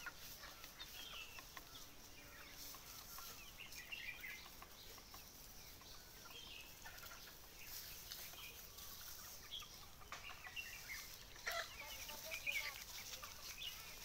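A flock of free-range desi hens clucking softly, short faint calls scattered here and there, a little busier near the end.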